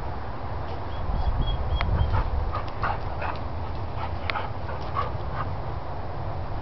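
Dog whimpering: a thin high whine about a second in, then a run of short whimpers, from a dog whose toy bear has been taken and who wants it back. A steady low rumble runs underneath.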